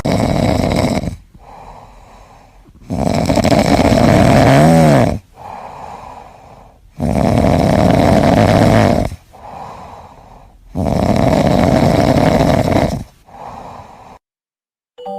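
A cat snoring in its sleep: four loud, drawn-out snores about two seconds long, one every four seconds or so, with quieter breaths between them. The snoring stops about a second before the end.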